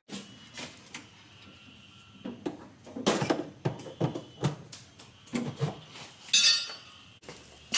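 Metal tools and gear being handled, a string of light clanks and clinks, with a brief high-pitched squeak about six seconds in.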